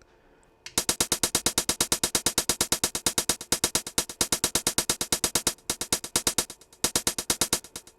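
Synthesized hi-hat from an E-mu Command Station playing a fast, even pattern that starts about a second in. Its volume is modulated by a random LFO on the amp volume, so the hits rise and fall in loudness unevenly, with a stretch of softer hits near the end.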